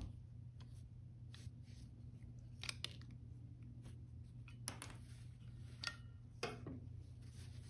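Faint handling noises from a plastic fashion doll and its cloth pajamas being turned in the hands: a few soft clicks and rustles, over a steady low hum. A low thump right at the start.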